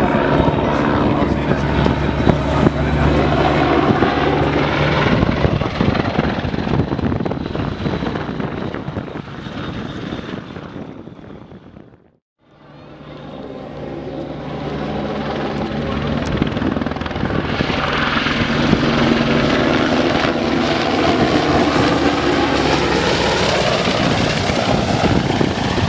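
Display aircraft flying past at an airshow: loud engine noise whose pitch slides as it passes. It fades almost to nothing about twelve seconds in, then builds back up as another pass comes in.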